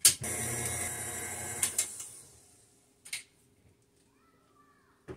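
Tilt-head stand mixer switched on with a click and beating cake batter for about two seconds, then switched off and spinning down. A few light clicks follow.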